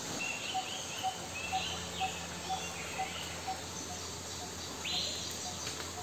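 Forest birds calling: a steady series of short single notes about twice a second, with brief higher chirps and a short harsh note about five seconds in.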